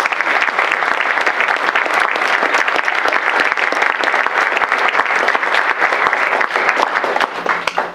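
Audience applauding: dense, steady clapping that thins out and dies away near the end.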